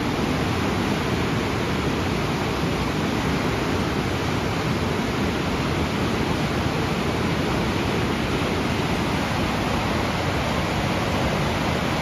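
Whitewater river rapids rushing over boulders: a loud, steady rush of water that starts abruptly at a cut and holds even.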